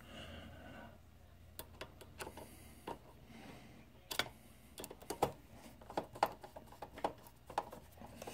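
Hand screwdriver turning a screw into a projector's plastic lamp bay: small sharp clicks, scattered at first, then coming faster from about halfway through.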